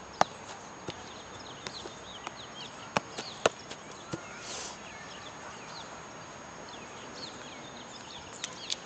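Sharp, irregular clicks and knocks, several in the first half and a couple more near the end, over faint birds chirping.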